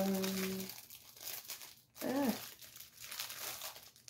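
Thin plastic packaging crinkling and rustling as hands pick and pull at a small sealed plastic bag, trying to get it open. A short murmured voice sound comes about two seconds in.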